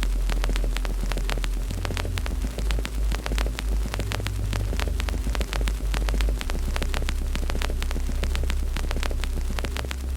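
Wood fire in a fireplace crackling, with many sharp pops and snaps, over a steady low rumble.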